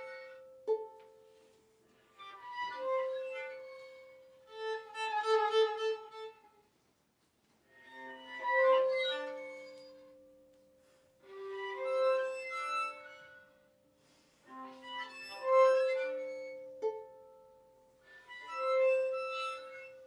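Violin and viola duo playing a contemporary piece: a series of short phrases, one about every three to four seconds, each swelling and then dying away, with the same sustained note coming back in each.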